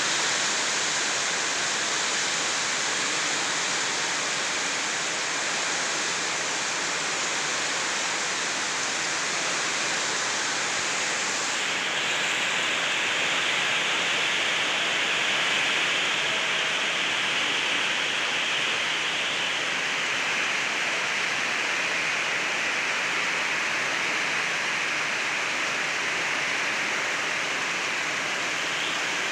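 Heavy rain pouring down in a steady hiss, turning brighter and heavier about twelve seconds in.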